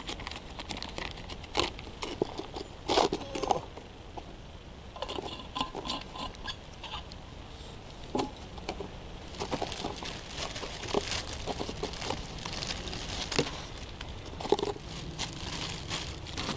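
Lagotto romagnolo puppy eating at the ground, with irregular crunching and crinkling and scattered small clicks.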